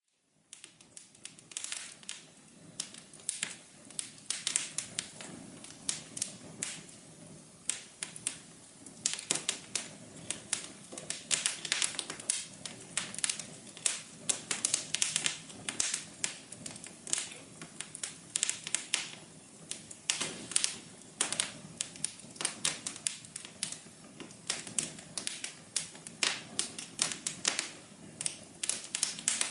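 Fireplace fire crackling: dense, irregular pops and snaps over a soft, steady low hiss.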